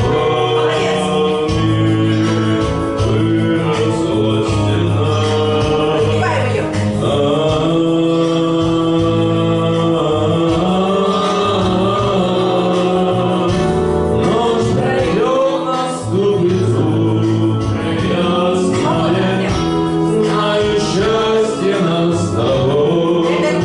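A man singing a pop song over an instrumental backing track, holding long notes with slides between them.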